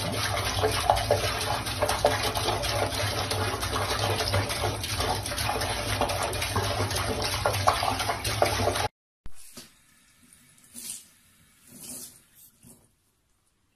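Water running steadily from a faucet into a sink, cutting off suddenly about nine seconds in. After that there are only a few faint brief sounds.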